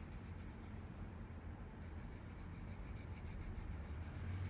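Colour pencil scratching on paper in quick repeated shading strokes, pausing briefly about a second in, over a steady low hum.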